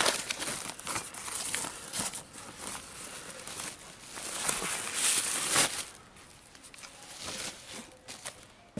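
Thin plastic protective bag rustling and crinkling as a portable speaker is slid out of it, loudest in two spells and dying down in the last few seconds.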